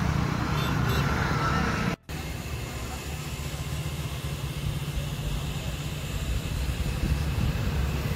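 Steady low rumble and hiss of background noise, with a brief dropout about two seconds in.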